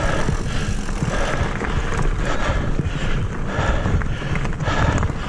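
Mountain bike rolling fast along a dirt singletrack: steady rumble of tyres on the trail and wind on the camera microphone, with a rhythmic sound about twice a second over it.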